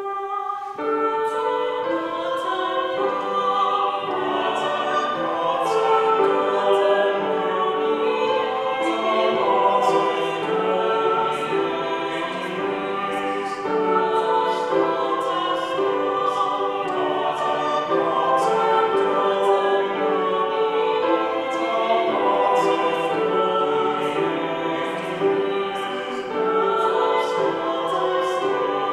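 Small vocal ensemble of soprano, alto, tenor and bass soloists singing a sung piece in parts, entering together at the start and singing on steadily.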